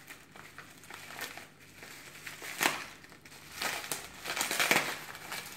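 Bubble wrap crinkling and crackling as hands unwrap a small circuit board. The crackles come irregularly, with a sharp one about halfway through and a busier stretch near the end.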